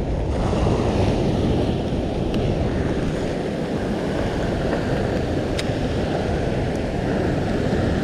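Steady rush of wind on the microphone mixed with the wash of sea waves, with a few faint ticks.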